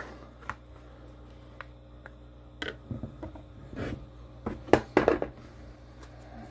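Hand-handling noises: scattered small clicks, taps and rustles of a plastic coin capsule, its box and a paper certificate being taken out and handled, with a cluster of louder knocks about five seconds in.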